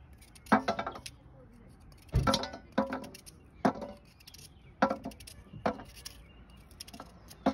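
Carrot rounds, sliced by hand with a knife, dropping one at a time onto a stainless-steel plate, each landing with a sharp clink. There are about seven at uneven gaps.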